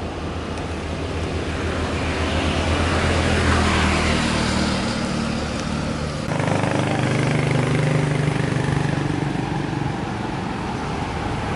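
A motor vehicle engine running with a steady low drone and a swell of road hiss that builds and fades about three to four seconds in. About six seconds in, the sound changes abruptly to another steady engine drone, slightly higher in pitch.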